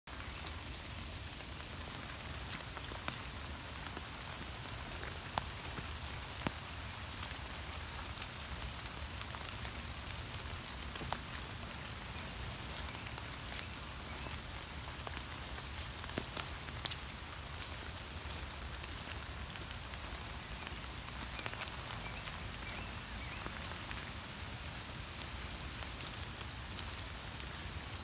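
Steady rain falling on leaves and the forest floor: a constant hiss with scattered sharp ticks of single drops.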